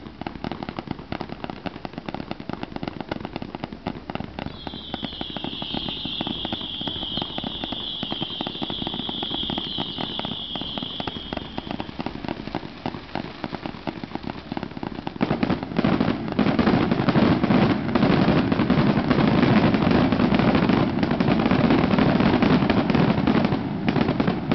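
Ground fireworks fountains crackling and popping continuously. A high, steady whistle runs for several seconds in the first half, and about fifteen seconds in the crackling turns louder and denser.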